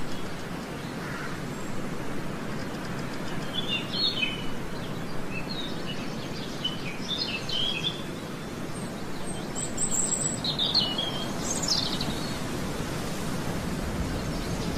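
Small birds chirping in short scattered bursts, a few times over several seconds, over a steady outdoor background noise.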